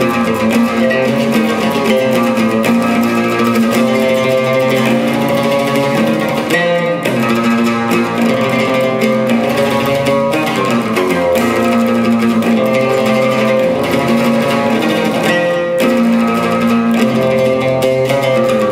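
Solo oud playing an unbroken run of plucked notes that keeps returning to the same low note.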